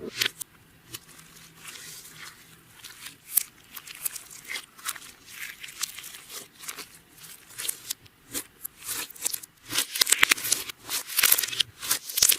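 Clear slime being worked by hand, with a dense run of sticky clicks, pops and crackles that grows louder and busier about ten seconds in.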